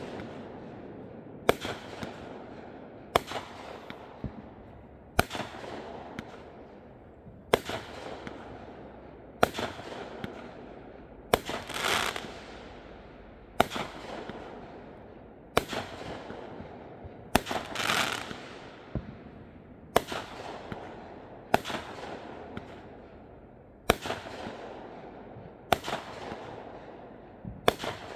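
Fireworks going off in a steady sequence, a sharp bang about every two seconds, each followed by a fading fizz.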